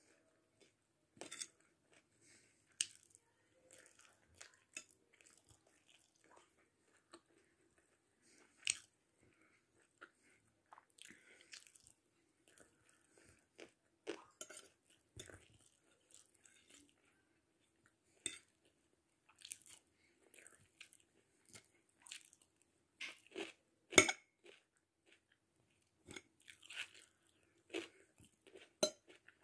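A person chewing and crunching food close to the microphone, in irregular bites with pauses between them. One crunch about 24 seconds in is the loudest.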